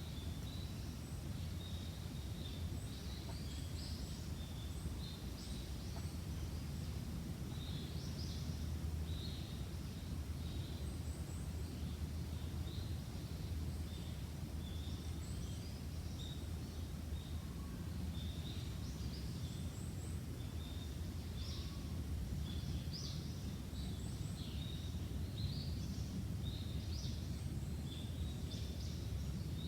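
Bamboo forest ambience: small birds chirping in many short, scattered calls over a steady low rumble.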